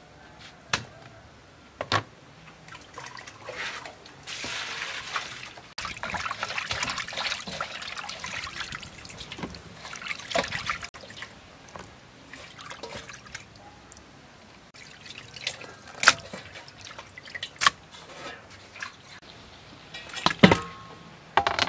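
Water sloshing and splashing as raw duck pieces and duck ovaries are rubbed and washed by hand in a stainless steel basin, busiest in the first half. Occasional sharp knocks, the loudest in the last few seconds.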